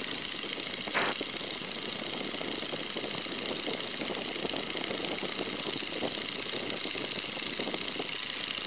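Boeing N2S-3 Stearman's seven-cylinder Continental radial engine and propeller running steadily in flight, heard through a rush of wind on the open airframe. A single short knock about a second in.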